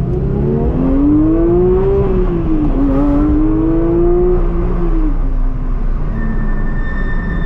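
Porsche 992 GT3's naturally aspirated flat-six heard from inside the cabin, pulling under acceleration. The revs climb, dip briefly at an upshift about three seconds in, climb again, then fall away about five seconds in as the car eases off.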